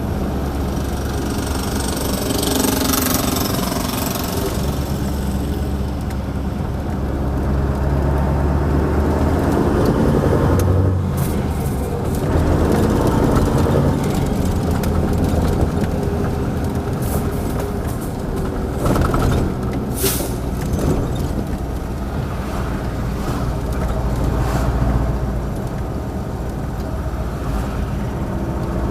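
1989 Mercedes-Benz SK 1748's V8 turbodiesel engine running as the truck is driven, its note rising and falling with the throttle. A few short hisses of air cut in, the loudest about three seconds and twenty seconds in.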